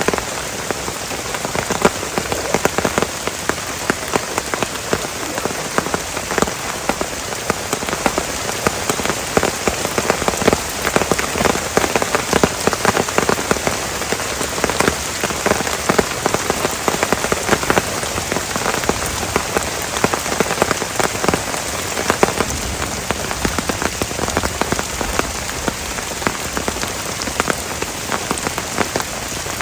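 Heavy rain falling steadily, a dense patter of countless drops striking a surface.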